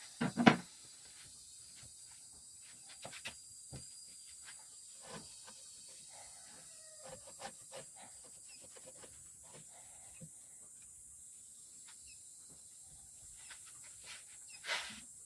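Scattered clicks and knocks of hand tools during spark plug work on a small car engine, with a loud knock about half a second in and a brief louder scrape near the end.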